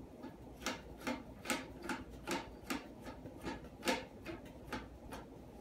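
Plastic flush-valve nut being turned by hand onto the threaded shank under a Kohler toilet tank, giving a run of light clicks about two or three a second.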